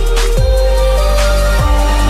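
Background music: a steady deep bass with two booming drum hits that drop in pitch, under held melody notes that step from one pitch to another.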